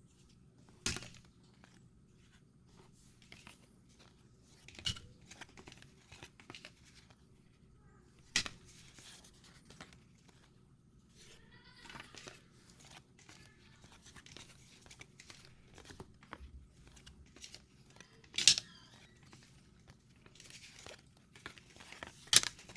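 Trading cards and their packaging being handled and looked through: quiet, scattered light clicks and brief papery rustles and crinkles, with a few sharper taps of cards against each other or the table.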